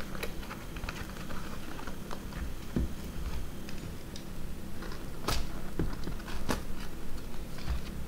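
Paper and cardboard parcel packaging being handled and unwrapped by hand: scattered crinkles and rustles, with two sharper snaps about five and six and a half seconds in, over a low steady hum.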